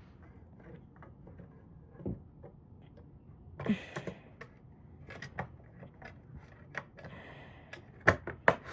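Scattered clicks and knocks of a plastic power strip casing and its screws being handled and refitted, with a short rustle about four seconds in and a quick run of sharper clicks near the end.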